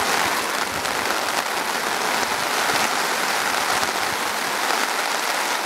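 Heavy storm rain falling steadily on a tarp overhead, heard from underneath it as a dense, even patter.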